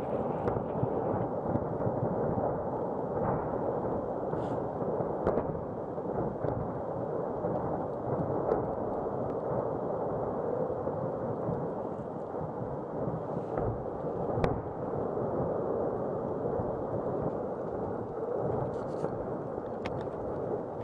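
Ammunition depot on fire, its munitions going off in a dense, unbroken rumble of explosions heard from afar. A few sharper cracks stand out, the loudest about fourteen seconds in.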